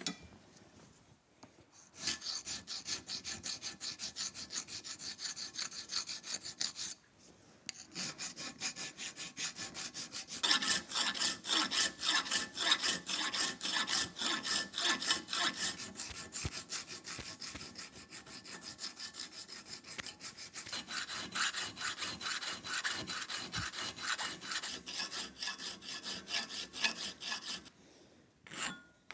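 Dreadnought file rasping on an aluminum part in quick back-and-forth strokes, about four a second. The filing stops briefly about seven seconds in, then resumes and runs until shortly before the end.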